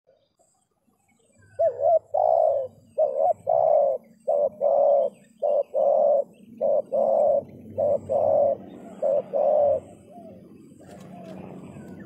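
Spotted dove cooing: a long run of low coos in short groups of two or three, starting about a second and a half in and stopping about two seconds before the end.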